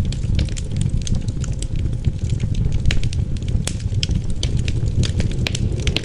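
Wood fire crackling in a fireplace: many irregular sharp snaps and pops over a steady low rumble of wind.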